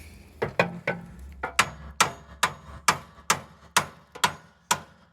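A hammer striking repeatedly, about two blows a second, each with a short ring, knocking at a stuck part of a riding mower's deck that will not come out.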